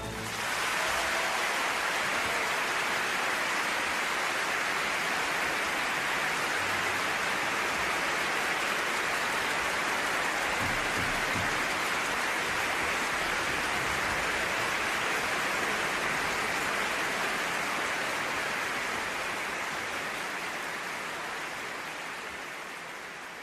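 Steady, even hiss like rain or static, with no tune or rhythm, fading out over the last few seconds.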